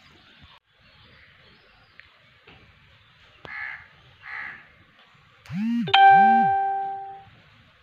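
A crow caws twice, then come two low swooping tones and a bright chime that strikes about six seconds in and rings on a steady pitch, fading over about a second and a half.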